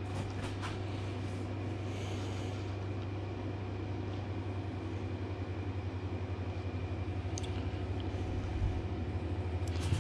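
Steady low machine hum, with a few faint light clicks of wooden pieces being handled.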